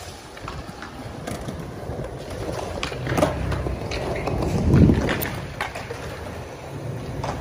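Skateboard wheels rolling over stone paving: a steady low rumble with scattered clicks and knocks, and wind on the microphone. The rumble swells a little before the middle and again near the end.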